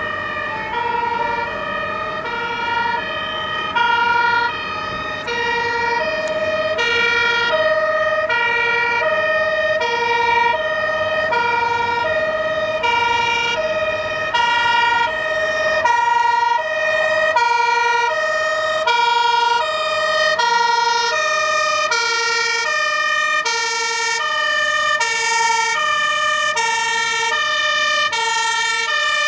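Dutch fire engine's two-tone siren, high and low notes alternating evenly, about one full cycle a second. It grows brighter over the last several seconds as the truck comes closer.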